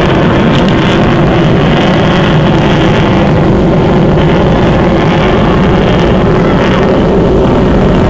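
Aircraft in flight overhead, its engine noise loud and steady throughout.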